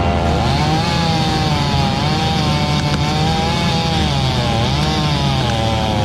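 Engine of working equipment running steadily, its pitch wavering up and down as the load changes.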